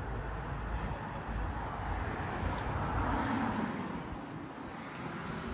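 Outdoor street noise: a steady low rumble that swells for a couple of seconds in the middle and fades again, like a vehicle passing.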